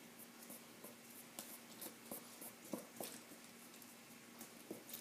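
Chopsticks stirring flour and water in a metal mixing bowl, the first stage of dumpling dough: faint, irregular scratching with light clicks as the sticks scrape the bowl. A faint steady hum lies underneath.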